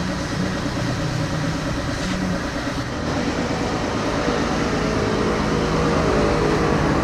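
A motor running steadily, with an engine-like hum that gets a little louder about three seconds in.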